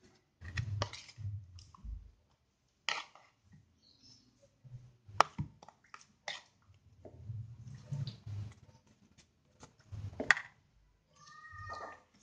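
Hands working a banana leaf and a metal spoon in a bowl while filling a botok packet: leaf rustling, spoon scraping, and scattered sharp clicks, the two loudest about five and ten seconds in.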